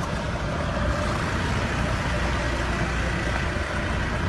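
Vehicle engine idling steadily with a low rumble.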